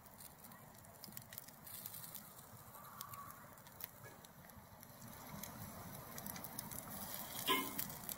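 Faint crackle and sizzle of a charcoal fire under a grill grate as salmon fillets and asparagus cook, with scattered small pops. A short, louder sound comes near the end.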